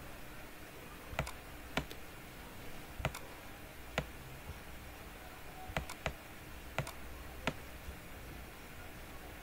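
About eight sharp single clicks of a computer mouse at irregular intervals, over a faint steady hum.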